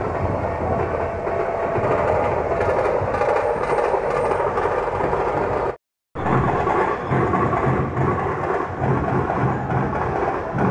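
Busy city street noise from above: steady traffic rumble and crowd hubbub. It breaks off briefly about six seconds in, and after that music and drumming from a street procession come through it.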